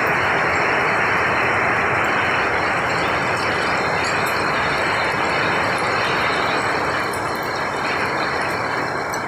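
Heavy rain with hail pelting corrugated tin roofs and a flooded yard: a steady, dense hiss of countless small impacts.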